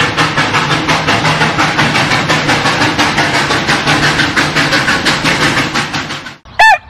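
Sound effect of a steam locomotive chuffing in an even, rapid rhythm, which cuts off abruptly about six seconds in. A rooster crow sound effect begins right at the end.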